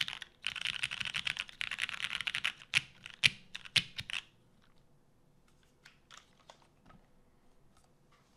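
Custom mechanical keyboard with lubed Cherry MX Brown tactile switches on a polycarbonate plate, typed on quickly in a steady stream of key clicks. About halfway through, a few louder single keystrokes come and the typing stops, leaving only a few faint clicks.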